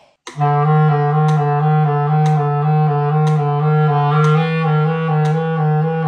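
Clarinet playing a run of quick notes low in its range, starting about a quarter second in. A light click sounds about once a second throughout.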